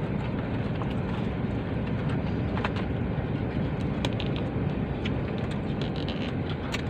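Steady low rumble of a car running, heard from inside the cabin, with a few faint clicks scattered through it.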